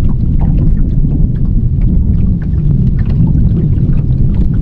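Strong wind buffeting the microphone, a loud steady low rumble, with scattered small ticks and splashes over it.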